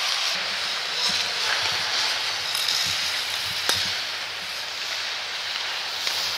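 Ice skate blades scraping and hissing on rink ice as skaters push off and glide, with one sharp click about halfway through.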